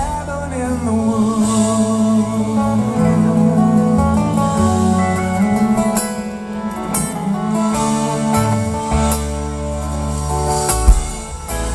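Live country band playing an instrumental break, led by acoustic and electric guitars over bass and drums, without vocals.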